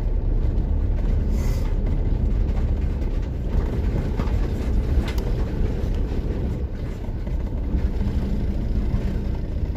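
Steady low rumble of a van's engine and road noise, heard inside the cab while it drives along a dusty dirt track, with a few light knocks or rattles.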